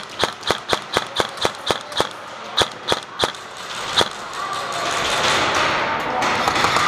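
Airsoft gun firing a quick string of single shots, sharp cracks about four a second, then a few slower shots. About four seconds in the shots stop and a steady rustle of movement takes over.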